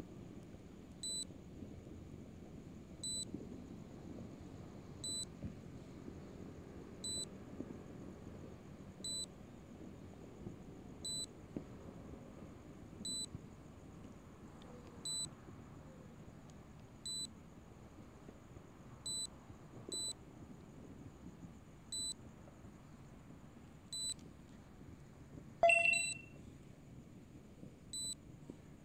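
Short high electronic beeps repeating steadily about every two seconds: a warning tone from the drone's remote controller or app. Near the end a single louder, brief chime sounds, as video recording starts in the drone app.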